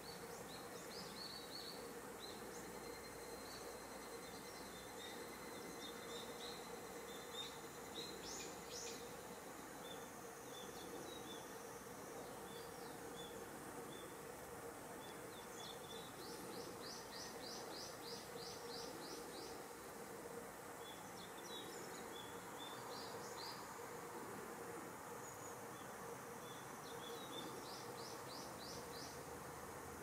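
Faint outdoor ambience of shallow water flowing steadily through an irrigation canal. Small birds chirp high and thin in the distance, with a quick run of repeated notes about halfway through and again near the end.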